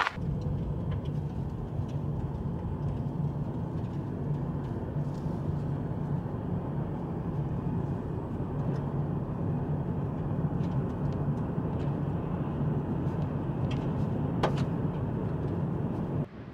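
A car driving along a paved mountain road: steady engine and tyre noise, cutting off just before the end.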